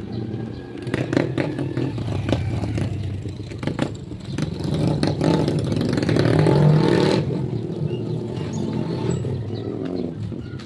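A motorcycle engine passes close by, rising to its loudest about six to seven seconds in and then falling away sharply. Clicks and rattles sound in the first few seconds.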